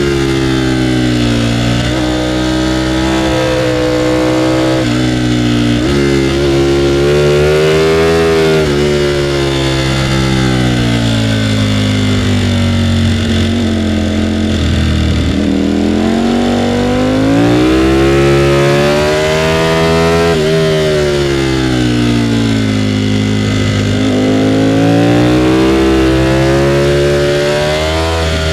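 Ducati Panigale V4R's V4 engine pulling a ridden motorcycle through a run of bends: its pitch climbs under throttle and sinks as it slows, several times over, with a few sudden jumps in pitch at gear changes.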